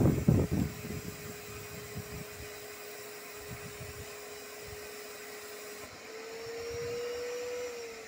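Eureka Forbes WDX2 wet-and-dry vacuum cleaner sucking water out of a plastic water tank through its hose. It opens with gurgling slurps that fade within the first second, then its motor gives a steady whine. About six seconds in, the whine rises slightly in pitch and gets louder.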